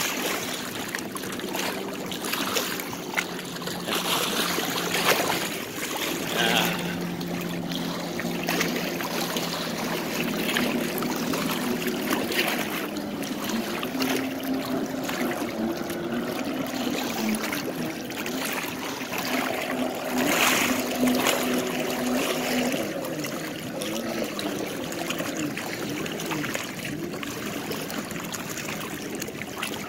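Small waves lapping and splashing against a boat on choppy lake water. Underneath runs a motorboat engine's drone that shifts in pitch every few seconds.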